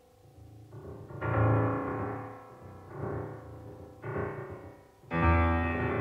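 Solo piano: a run of loud chords with deep bass notes, struck roughly a second apart, each ringing and fading before the next.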